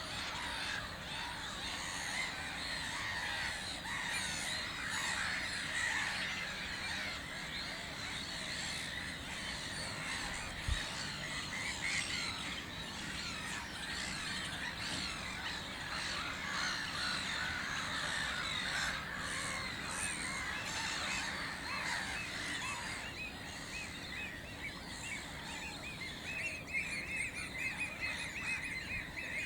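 Many wild birds calling at once: a dense, continuous chorus of overlapping chirps and calls, with a brief low thump about eleven seconds in.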